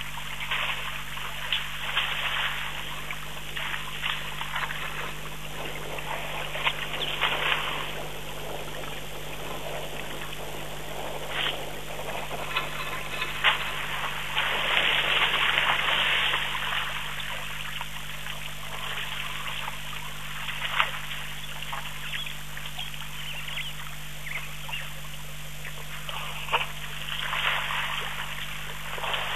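Water splashing and trickling as African elephants wade and drink in a shallow waterhole, with many short uneven splashes, over a steady low electrical hum.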